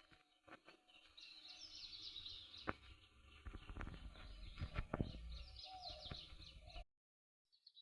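Small birds chirping and twittering rapidly over a low rumble, with a few sharp clicks. The sound cuts off abruptly about seven seconds in, and faint chirps follow.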